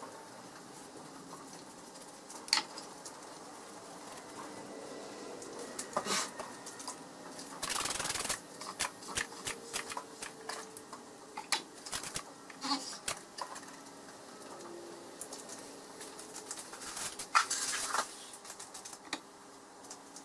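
Irregular metal clicks, clinks and knocks as heavy steel lathe chucks are handled and set down, with a short scraping rush about 8 seconds in and a loud cluster of knocks near the end.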